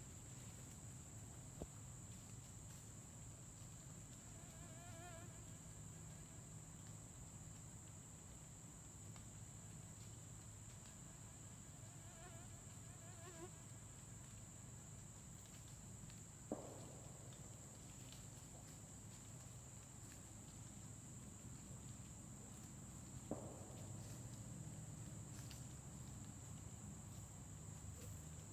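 Faint, steady high-pitched drone of insects, the even late-summer chorus of a hot southern woods. A few soft sharp clicks stand out, about a second and a half in, a little past halfway, and about three-quarters of the way through, and two brief faint warbling calls come in the first half.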